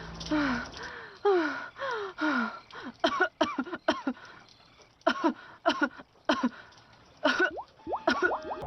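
A woman's voice acting out pain: about five breathy, pained gasps, each falling in pitch, then clusters of short, sharp coughs from about three seconds in.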